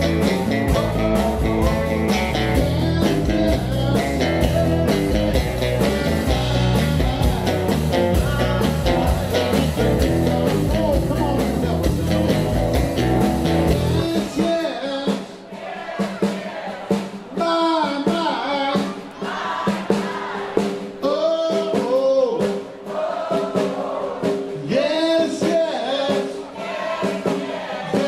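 Live blues-rock band playing: electric guitar, bass and drums with a male lead singer. About halfway through, the bass and drums drop out, leaving the singing over a sparser accompaniment.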